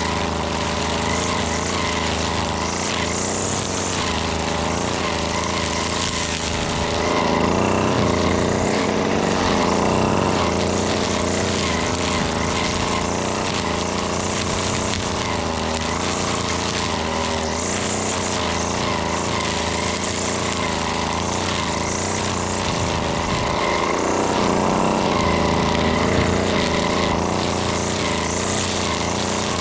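A two-stroke gas string trimmer runs at working speed, cutting weeds. Its pitch wavers as the throttle is worked, and it revs up louder twice, about a quarter of the way in and again near the end.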